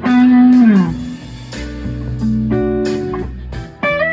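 1973 Gibson ES-345 semi-hollow electric guitar through a BOSS Nextone Stage amp on a crunch tone, playing a lead phrase. It opens with a loud held note that bends down in pitch, then several notes ring together for a couple of seconds, and quick picked notes come near the end.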